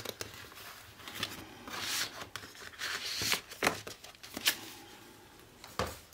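Sheets of cardstock being handled and compared, rustling and sliding against each other, with several short taps and scrapes.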